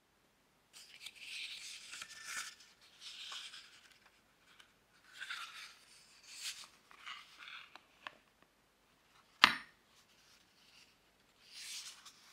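Paper pages of a small hardcover book being turned and handled, rustling and sliding in a series of short swishes, with one sharp tap about nine and a half seconds in.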